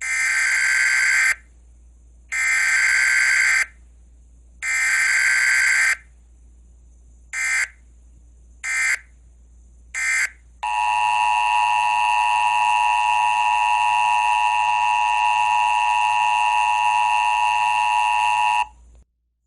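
Emergency Alert System signal from an EAS simulator app. Three SAME header data bursts, each a little over a second long, are followed by three short bursts. Then the steady two-tone attention signal sounds for about eight seconds and stops just before the end.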